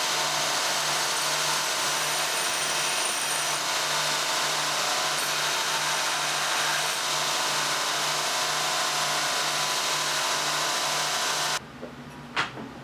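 A power tool running steadily with a faint regular pulse, stopping abruptly near the end, followed by a single click.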